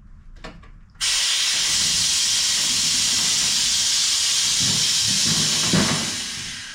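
Mower lift being let down, its air release giving a loud, steady hiss that starts abruptly about a second in and fades out near the end. A few faint clicks come just before the hiss.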